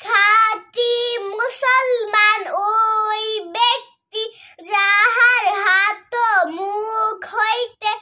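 A young girl's voice chanting in a high, sing-song melody, with held notes and brief pauses between phrases.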